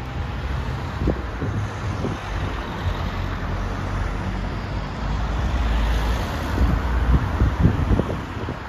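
Cars driving over a level crossing close by: a steady rumble of engines and tyres that grows louder in the second half, with a few short thumps, loudest near the end.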